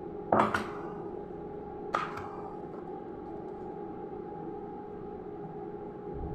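A steady electrical hum, with a knock of a kitchen utensil about half a second in and a sharp clink that rings briefly about two seconds in.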